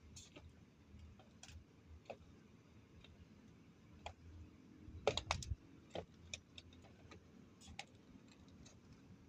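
Scattered light clicks and knocks over a low background rumble, with a quick run of louder knocks about five seconds in.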